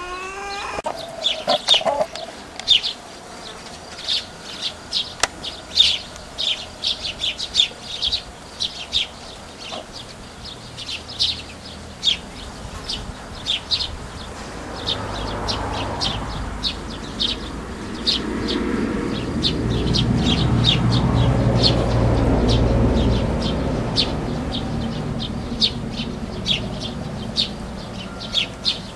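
Small birds chirping in quick, short, high notes throughout. A low rumble with a steady hum swells in the middle, loudest about two-thirds of the way through, then fades.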